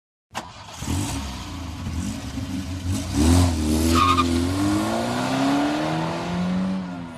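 Engine revving, its pitch rising and falling several times, with a sharp click at the start.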